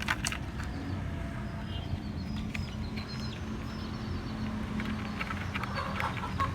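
Steady low hum, with a few faint bird chirps and scattered light clicks over it.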